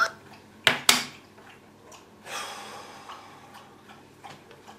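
Two sharp clicks about a quarter of a second apart, then a short breathy hiss and a few faint small ticks and rustles.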